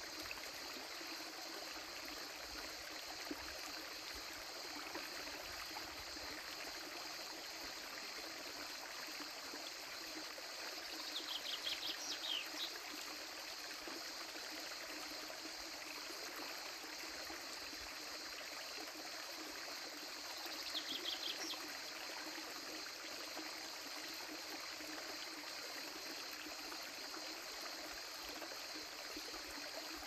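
Shallow creek water trickling and babbling over rocks, steady. About eleven seconds in, and again about twenty seconds in, a short high chirping trill.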